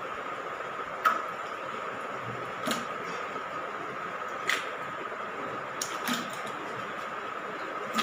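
Handles of water-filled plastic buckets clicking against their fittings as the buckets are curled for bicep reps, a sharp click roughly every one and a half to two seconds. Underneath is a steady background hiss with a faint high hum.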